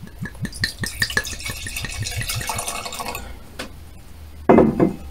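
Homemade wine being poured from a bottle into a glass: a run of small clicks and clinks, then about two seconds of pouring that stops about three seconds in.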